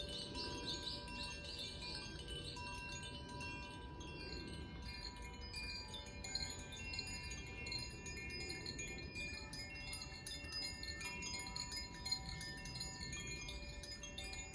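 Koshi and Zaphir chimes ringing as they are swung, many clear overlapping tones at several pitches, with new notes sounding every second or so and each one left to ring on.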